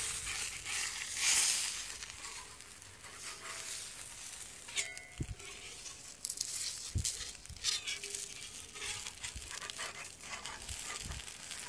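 Pancake batter sizzling on a hot, large round griddle pan, with a spatula scraping under the pancake at intervals to loosen and turn it.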